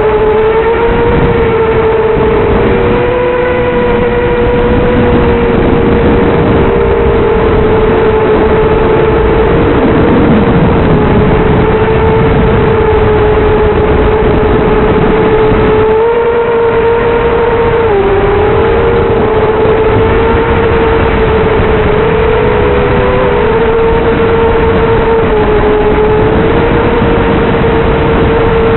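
Brushless motors and three-blade props of a 250-size racing quadcopter whining, the pitch wavering up and down with throttle changes, over a steady rushing noise.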